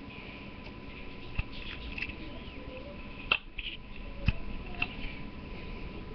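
Small knife blade scraping and nicking into the wood of a staff while carving, in short scratchy strokes with a few sharp clicks. The loudest clicks come a little past three seconds and just past four seconds in.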